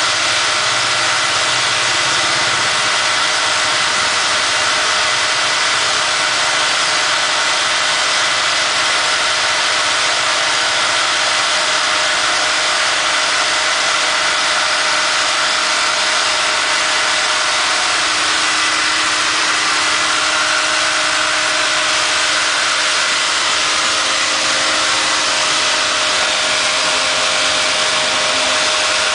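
An engine idling steadily: a constant mechanical drone with a few held tones over a broad hiss, unchanging throughout.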